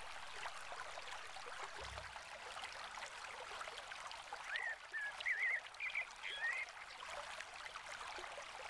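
Faint steady rush of flowing water, with a small bird giving a quick run of short chirps a little past halfway.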